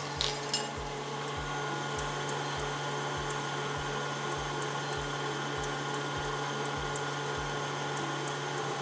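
Electric mixer running steadily at medium-high speed, whipping egg whites into meringue as sugar is added, with a low pulse about twice a second. A couple of sharp clinks near the start.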